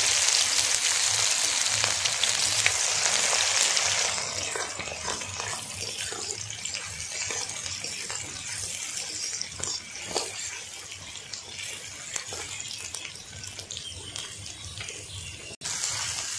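Onions sizzling in hot oil in a kadai, frying loudly for about four seconds and then settling to a quieter, steady crackle.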